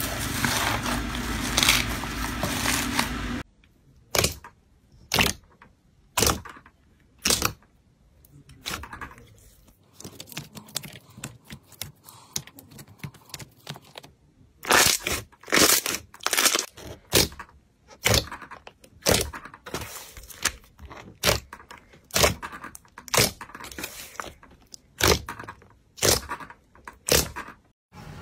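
Hands squeezing and folding slime. First comes a dense crackling rustle of slime packed with foam beads. Then, after about three seconds, a long irregular string of sharp pops and clicks as air pockets in a thick slime burst.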